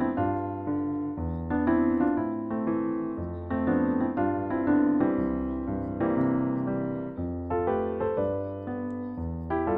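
Solo piano background music: a light melody over a steady, recurring bass line.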